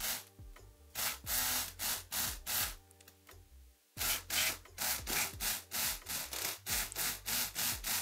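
Multipick Kronos electric lock pick gun firing in short repeated buzzing bursts, about two to three a second, its needle snapping against the pins of a Yale six-pin padlock. There is a pause of about a second near the middle before the bursts resume.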